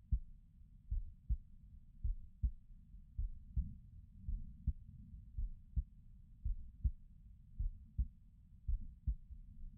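A person's heartbeat, heard close up as low, muffled lub-dub pairs of thumps, a little under one pair a second.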